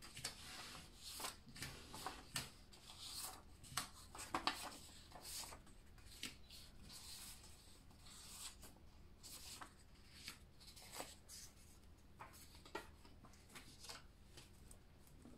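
Faint rustling and light flicks of paper play-money bills being handled and laid back onto stacks, many short sounds scattered through.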